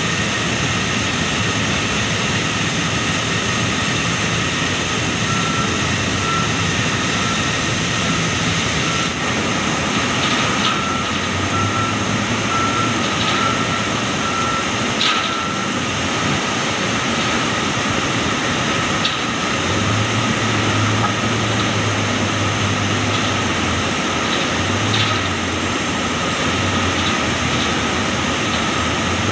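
Tractor-loader-backhoe's diesel engine and hydraulics working as it scoops oil palm fruit bunches, with a run of evenly spaced reversing beeps in the first half and a few sharp knocks from the bucket. The engine note grows stronger past the middle as the machine works under more load.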